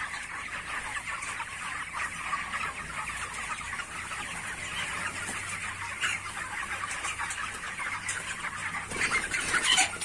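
A large flock of 29-day-old broiler chickens clucking and cheeping together in a steady, dense chatter, over a faint low hum.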